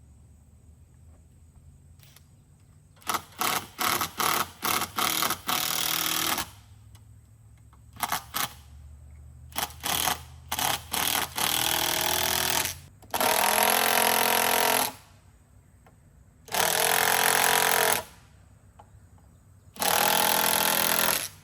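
Cordless power driver driving screws into a wooden board: a run of quick stop-start trigger pulls, then several longer runs of a second or two each as the screws go in.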